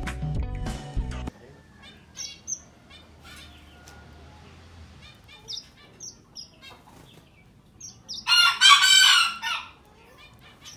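Background music stops about a second in. Caged small finches (red avadavats) then give short, scattered high chirps. Near the end comes one much louder, harsher bird call lasting about a second and a half.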